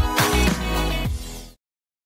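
Background music that fades down and then cuts off to silence about one and a half seconds in.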